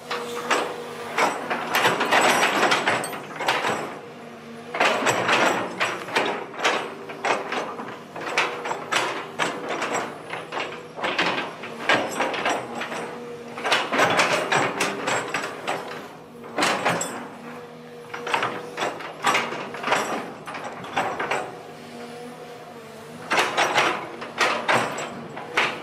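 Long-reach excavator working: its diesel engine runs steadily under repeated bursts of metallic clanking and scraping, each lasting one to a few seconds.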